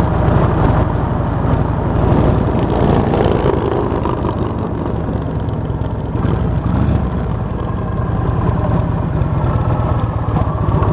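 Motorcycle engine running steadily at highway cruising speed, with wind and road noise.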